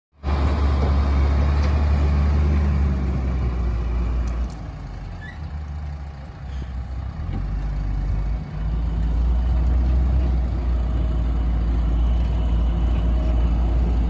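Diesel engine of a loaded Tata tipper truck running as it pulls away over rough ground, a deep steady rumble that drops back for a few seconds midway and then comes up again.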